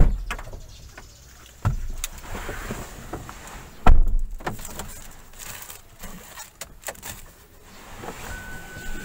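A car door thumping as someone gets into the driver's seat: a thump at the start, another about a second and a half in, and the loudest, the door shutting, about four seconds in. Clicks and rustling follow, and a steady high tone starts near the end.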